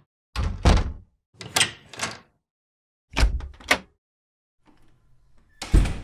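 Doors being opened and shut: clicks of latches and handles and knocks of the door meeting its frame, in four separate short bursts. The last knock, near the end, is the loudest.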